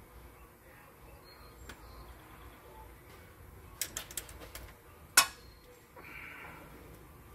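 A ratchet wrench clicking in a short quick run as the 10 mm bolt holding the new crankshaft position sensor is run in, followed about a second later by one sharp metallic clack, the loudest sound.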